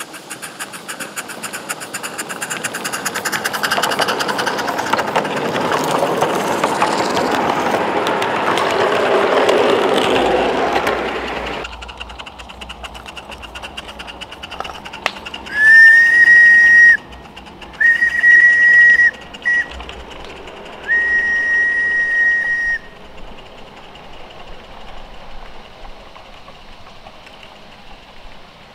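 Live-steam garden-railway locomotive running along the track, getting louder for about ten seconds as it nears and then cutting off abruptly. Then three blasts of its steam whistle, each a single high note lasting one to two seconds, followed by the faint, even chuffing of the train.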